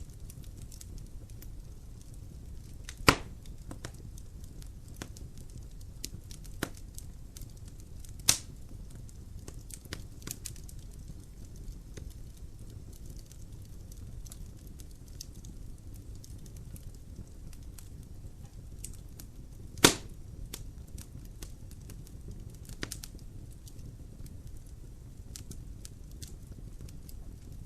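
Fire burning in a fireplace: a steady low rumble of flames with scattered crackles and three loud pops, about three, eight and twenty seconds in.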